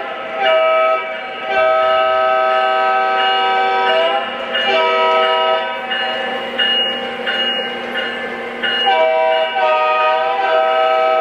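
Sound system of a Lionel O scale Union Pacific switcher locomotive blowing its diesel horn: a chord sounded in several long blasts with short breaks, each sagging in pitch as it cuts off. The horn drops back in the middle and sounds again near the end.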